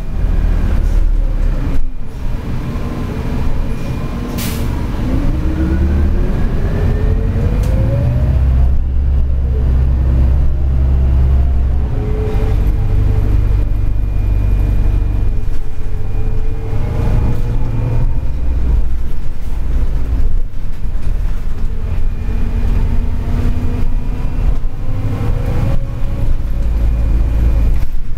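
Inside a New Flyer C40-LF natural-gas city bus under way: a steady engine and road rumble, with the drivetrain whine rising in pitch each time the bus accelerates, three times over. There is a short sharp sound about four and a half seconds in.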